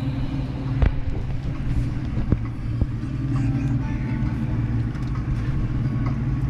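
An engine drones steadily at a low pitch, with a few sharp knocks about a second and two to three seconds in.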